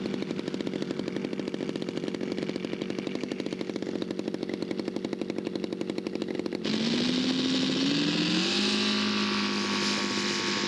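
Radio-controlled model airplane engine running with a fast, even putter. About two-thirds in, the sound switches abruptly to an engine rising in pitch as it is throttled up, then holding steady at the higher pitch.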